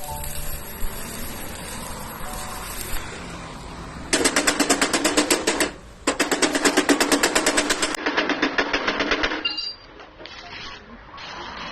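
Fast, even mechanical clatter in two runs, the first of about a second and a half and the second of about three seconds, with a short break between them.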